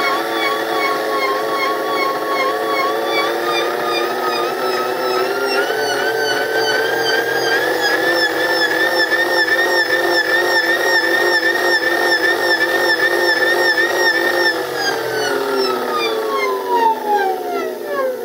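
Military starter/generator motor running unloaded on a Kelly SepEx controller, giving off a whine. The whine rises in pitch over several seconds as the motor speeds up, holds steady, then falls away near the end as the motor slows down.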